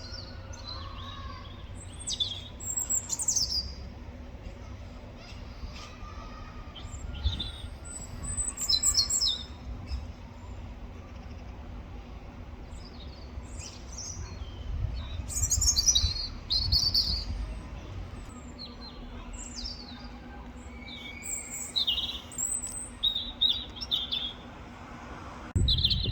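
Robin singing: short, high-pitched phrases of song in clusters, separated by pauses of a few seconds, over a low background rumble.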